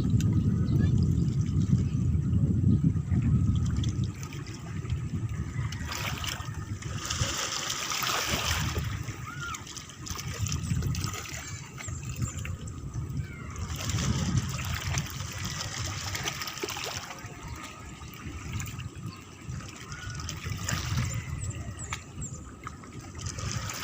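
Water trickling and splashing, with a heavy low rumble in the first few seconds.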